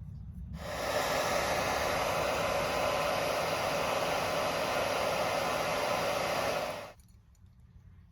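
Hairdryer switched on, blowing steadily for about six seconds and then switched off, used to heat and soften a bent plastic toy-car part so it can be reshaped.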